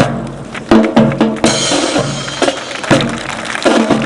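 Band music with a steady drum beat of bass drum and snare hits, growing brighter and fuller about a second and a half in.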